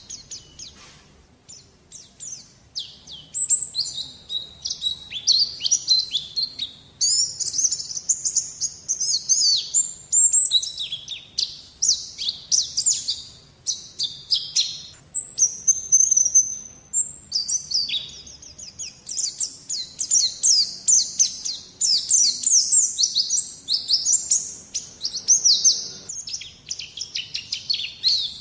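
White-eye (pleci) song: a rapid, high twittering of quick chirps and trills. It is sparse at first and nearly unbroken after about two seconds.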